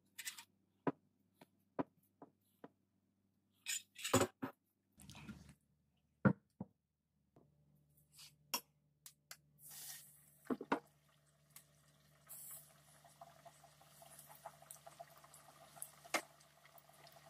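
Scattered clicks and knocks of handling, then flour-coated fish pieces going into an electric deep fryer's hot oil, which sizzles and bubbles in a rising hiss over the last few seconds, with a sharp click about sixteen seconds in. A faint steady low hum runs under the second half.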